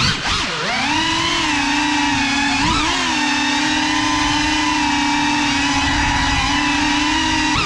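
Small FPV drone's brushless motors and propellers whining. The pitch drops sharply and climbs back about half a second in as the throttle is chopped and reapplied, wobbles briefly near three seconds, then holds steady.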